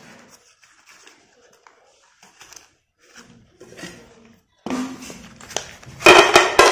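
Faint rustling and tearing of a thin cardboard box of slate pencils being opened. Near the end the pencils are poured out and clatter onto a plate in a quick run of sharp clicks.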